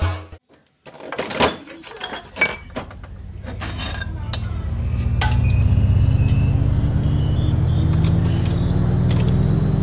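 Hand tools clinking against the metal of a disassembled Yamaha Mio scooter engine's cylinder and head. From about four seconds in, a steady motor drone builds up and slowly rises in pitch, and it becomes the loudest sound.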